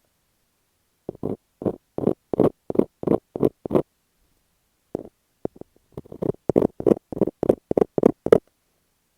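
Fingers working masking tape stuck over an earphone microphone: quick muffled touches close on the mic, about three a second, in two runs with a pause of about a second between.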